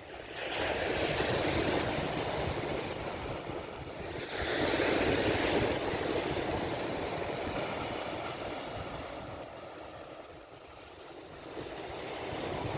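Sea waves breaking on the shore: two surges of wash about four seconds apart, each fading slowly.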